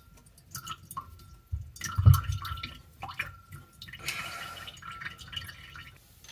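Water dripping from an opened bathroom sink drain, with scattered clicks of the drain parts being handled and a dull knock about two seconds in.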